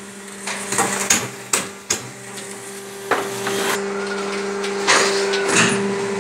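Block-making machine running with a steady motor hum, broken by irregular metal knocks and clanks from the machine and its steel pallets.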